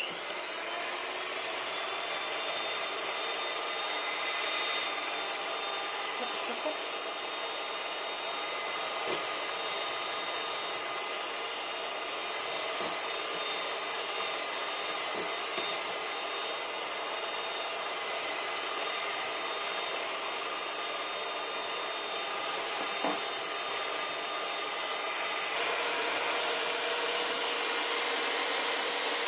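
Electric hand mixer running steadily, its beaters whisking egg yolks in a ceramic bowl. It spins up at the start, gives a few light taps of the beaters against the bowl, and changes tone near the end.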